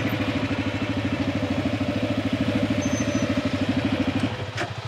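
Motorcycle engine running at low speed with a steady, even pulsing, its note dropping and softening about four seconds in as the throttle eases off.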